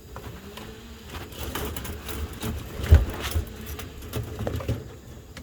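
Knocking and rustling, with one louder thump about three seconds in, as a stick is used to tip an object back over in the chicken pen.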